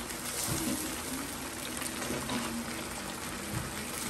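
Garlic-and-onion sauce base cooking in a wok, a steady simmering sizzle.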